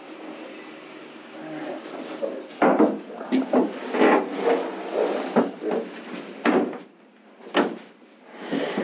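Irregular knocks, bumps and scuffs of a person kneeling, shifting and stepping about in a fiberglass shower pan inside a boat hull, with a spirit level set down on the pan.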